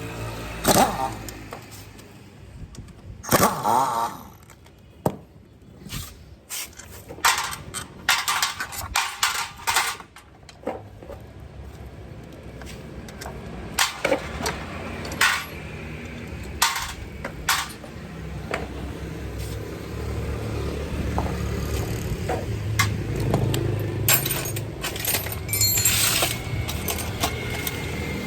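Scattered sharp metallic clicks and clanks of tool work on a scooter's transmission. In the last third a low steady mechanical hum rises underneath.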